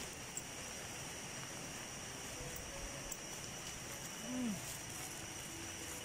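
Steady high-pitched insect drone, like crickets, over outdoor air noise, with a brief low hum from a person's voice about four seconds in.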